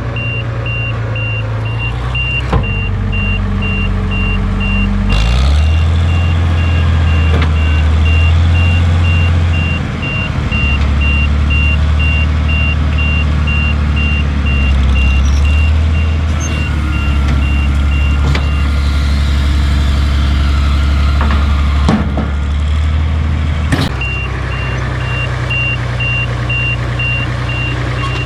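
Tractor engine running steadily, its pitch shifting a few times, with a rapid, even high beeping over most of it.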